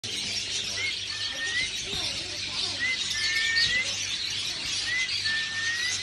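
Many small caged birds chirping and twittering together, with a thin, slightly rising whistle that repeats about every two seconds.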